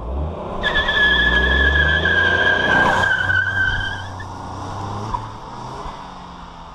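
A tuned Ford Fiesta 1.0 accelerating toward and past, engine revving and loudest about one to three seconds in, then fading away. A high, steady whine joins about half a second in and stops about four seconds in.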